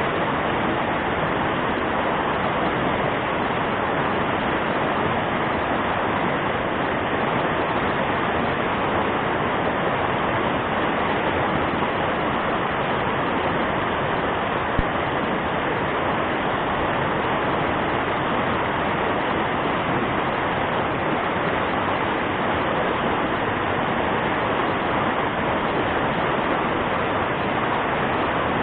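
Fast-flowing river water rushing steadily over the rapids, an even hiss with no change, with one brief click about halfway through.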